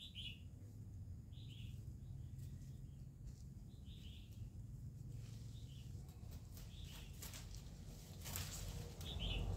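A small bird chirping over and over, short high calls every second or so, over a low steady background hum. In the second half, leaves and branches of a fruit tree rustle and snap as they are pulled, loudest a little before the end.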